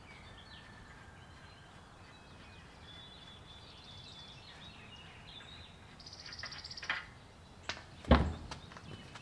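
Birds chirping over a quiet outdoor background, then a few knocks and one heavy thud about eight seconds in as the truck's front wheel and tire are worked off the hub.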